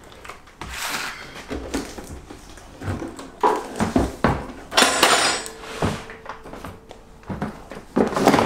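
Unboxing handling noise: irregular knocks and thunks with rustling of plastic wrapping as the plastic-wrapped portable water heater unit is set down on a counter and parts are pulled from the box.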